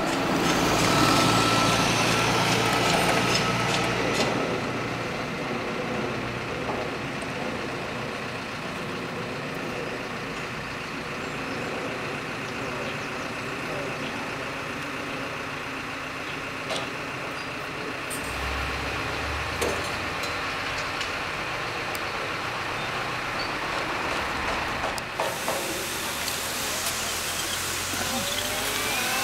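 Road traffic going by: motor vehicle engines and tyre noise, louder in the first few seconds, with a bus passing near the end.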